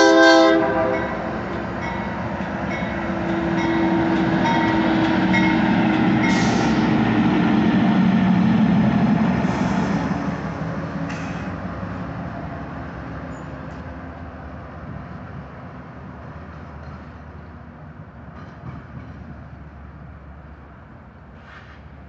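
The end of a horn blast from the lead locomotive's Nathan K3LA five-chime air horn, cutting off about a second in. Then two GE diesel-electric locomotives running light pass close by, engines and wheels loudest about four to ten seconds in, and fade away as they move off.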